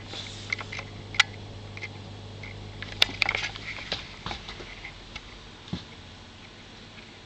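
Irregular clicks and knocks from a handheld camera being moved and handled, loudest about a second in and again around three seconds in, over a steady low hum from aquarium equipment that weakens about halfway through.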